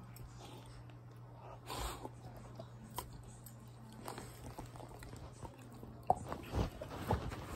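A Boxer–Labrador mix puppy chewing on a toy: faint, scattered gnawing clicks, busier and louder over the last second or so, over a steady low hum.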